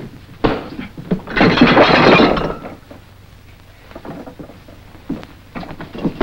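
Fistfight sounds from an old TV soundtrack: scuffling and thumps, with a loud crash of something breaking lasting about a second and a half, starting just after a second in, followed by a few more thumps.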